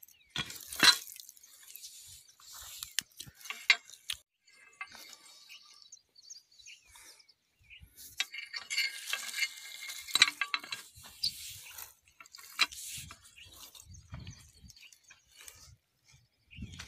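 A long metal hand tool worked against the base of dry woody plant stalks: sharp cracks and clinks where it strikes and snaps them, with crackling rustle of dry twigs and leaves between strikes.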